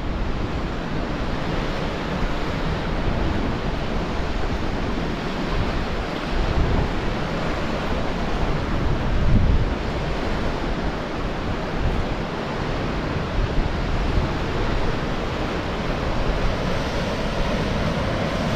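Sea surf washing against a rocky shore, with wind rumbling on the microphone. The wash surges louder about six and nine seconds in.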